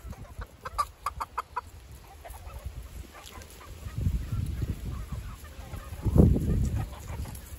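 Flock of free-range chickens clucking: a quick run of short clucks in the first second and a half, then softer scattered clucks. A low rumble comes in about four seconds in and is loudest around six seconds.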